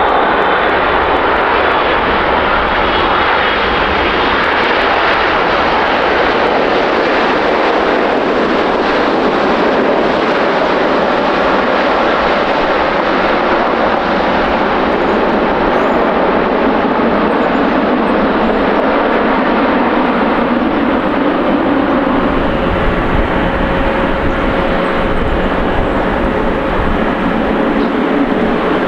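Boeing 777's twin GE90 turbofan engines running, loud and steady jet noise with a high fan whine at first, as the airliner rolls along the runway. The low rumble grows in the last few seconds.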